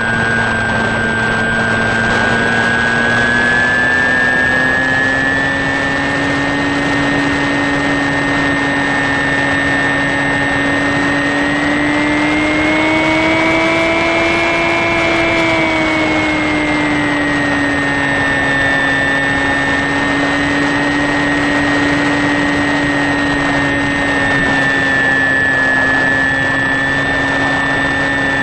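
HobbyKing Sky Eye RC plane's electric motor and propeller, heard from the onboard camera: a steady whine over rushing air. About halfway through, the pitch rises for a few seconds, then settles back.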